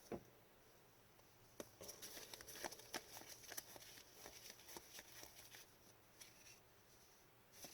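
Faint rustling and light clicks of trading cards and their packaging being handled, with a few small ticks through the middle and quieter stretches at either end.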